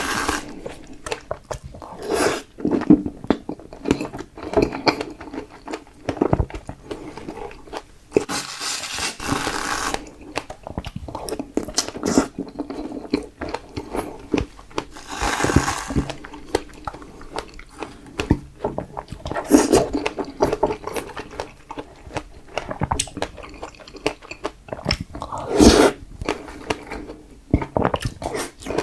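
Close-miked biting and chewing of fresh strawberries, with irregular wet, crunchy mouth sounds.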